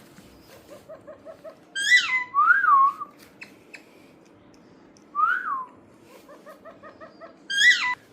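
Pet bird whistling and chirping: several loud whistled calls that swoop up and down in pitch, with quick runs of soft, short chirps in between.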